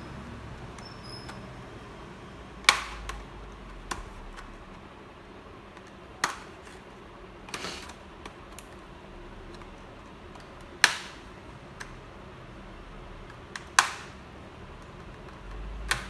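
Sharp plastic clicks and snaps, one every few seconds with quieter taps between, as the clips of an HP laptop's bottom cover are pried loose.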